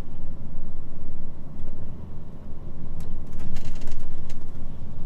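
HGV truck's diesel engine and road noise, heard from inside the cab as the lorry drives on, with a steady low rumble. A few short sharp knocks and rattles come about three to four seconds in.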